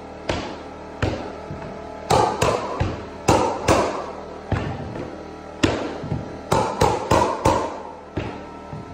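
Mallet blows on a pneumatic hardwood flooring nailer driving cleats into oak floorboards: about fourteen sharp strikes at irregular spacing, several in quick pairs, each with a short ring.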